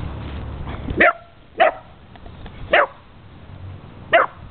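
A dog giving four short, sharp barks at irregular intervals, barking at a cat.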